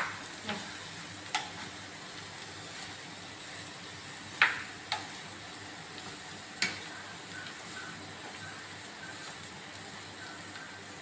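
Rice sizzling in a hot frying pan as it is stir-fried for fried rice and turned with a wooden spatula, the spatula knocking sharply against the pan about five times.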